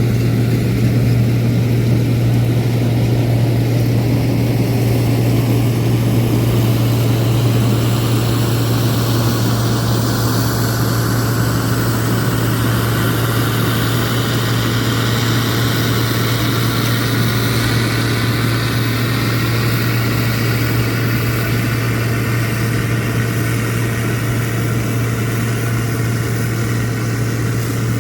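Farm machinery engine running steadily, with a strong low hum and a fainter higher whine that slowly rises in pitch over the first dozen seconds.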